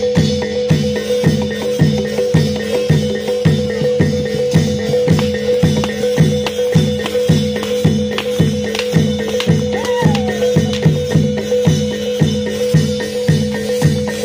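Reog accompaniment music: drum strokes about twice a second under a steady ringing tone, with rattling percussion on top.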